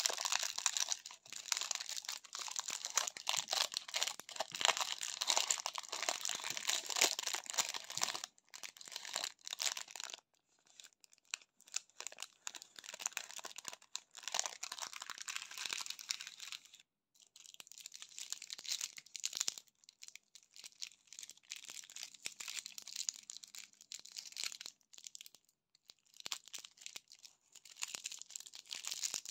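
Foil and paper candy wrappers crinkling and crackling in the fingers as a chocolate candy is unwrapped. The crinkling is densest and loudest over the first ten seconds or so, then turns softer and more scattered, with short pauses.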